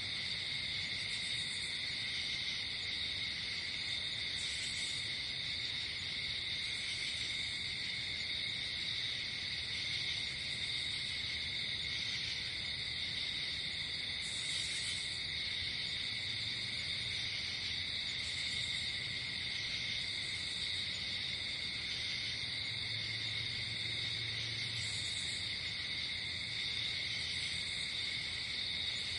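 Night insect chorus: crickets trilling steadily, with short higher-pitched buzzes from other insects coming every couple of seconds.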